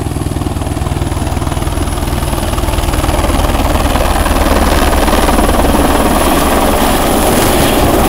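Light helicopter approaching low and descending to land, the fast beat of its rotor getting steadily louder as it draws near.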